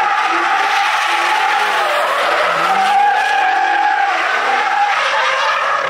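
Car tyres squealing steadily as a car drifts and spins donuts under a revving engine. About two seconds in the engine revs dip and climb back.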